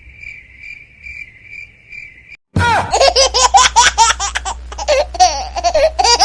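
Cricket chirping, a steady high trill pulsing about three times a second; about two and a half seconds in it stops and loud, high-pitched laughter with a low hum underneath takes over.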